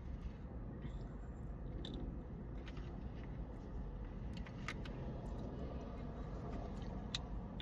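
Quiet eating of a bite of cookie-butter pie: a few faint clicks and mouth sounds over a steady low background rumble.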